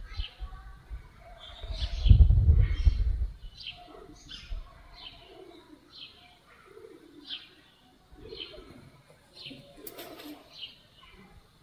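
Birds calling: a short, high chirp repeated about every three-quarters of a second over lower calls. A loud, low rush about two seconds in lasts about a second.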